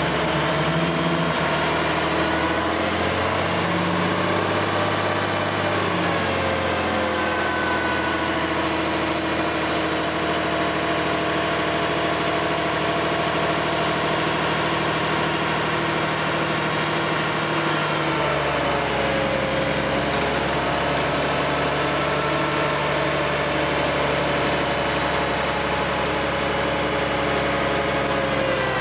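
Engine of the machine lowering the precast concrete septic tank on chains, running steadily; its pitch shifts a few seconds in and again about two-thirds of the way through as the load is worked.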